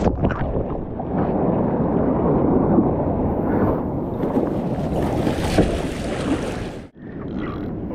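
Waves and whitewater rushing around a kayak paddled out through surf, heard muffled, with wind buffeting the microphone. The sound drops out abruptly near the end.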